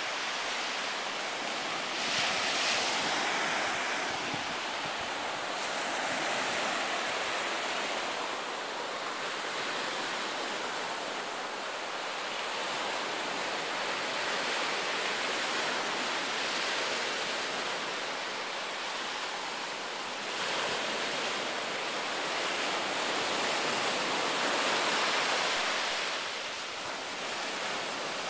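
Ocean surf breaking and washing up a sandy shore, a steady rush that swells louder every few seconds as waves come in.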